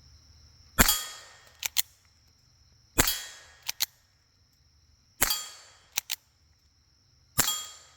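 Four quiet shots from a .22 firing CCI Colibri low-velocity rounds, evenly spaced about two seconds apart. Each is a sharp pop with a short fading tail, followed a moment later by two quick clicks.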